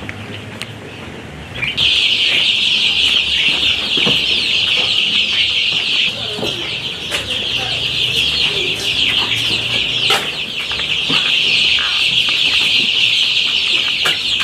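A brooder full of young chicks peeping all at once: a loud, dense, continuous high-pitched chorus that starts abruptly about two seconds in, with a few soft knocks underneath.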